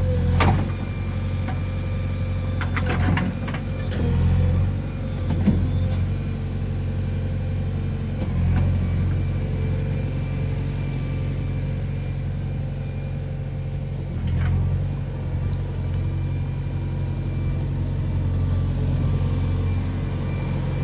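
JCB 3DX backhoe loader's diesel engine running steadily, swelling louder a few times as the load comes on, with several sharp knocks early on.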